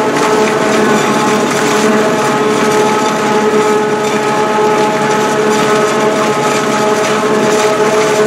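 Forage harvester chopping standing corn for silage, running at a steady working speed: an even mechanical drone with a constant whine that does not change.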